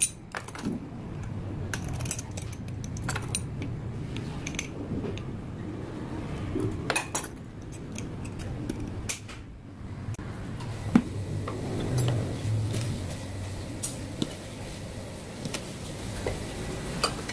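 Scattered clinks and clicks of kitchen things being handled: a glass clip-top jar with its wire clasp, and metal measuring cups used to measure out dry ingredients.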